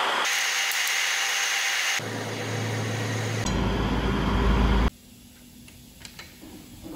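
Steady workshop noise that changes abruptly several times and drops much quieter about five seconds in, followed by a few light clicks while the cylinder head bolts of a bare truck diesel engine are pulled tight with a long hand wrench.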